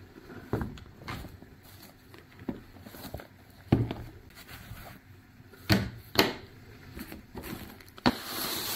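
Shoes being unpacked and handled on a wooden tabletop: a series of irregular knocks as they are set down and moved, with the rustle of their fabric dust covers and drawstring bag, louder near the end.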